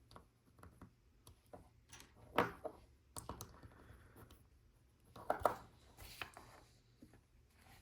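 LEGO plastic pieces being handled and fitted: scattered light clicks and rattles, with louder clatters about two and a half seconds in and again about five seconds in.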